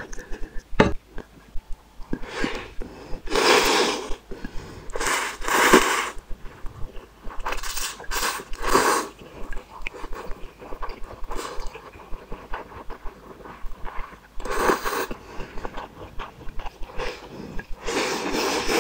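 Close-miked mouth sounds of someone eating noodles and fishballs: quick wet chewing clicks throughout, with about five louder noisy bursts of a second or so each.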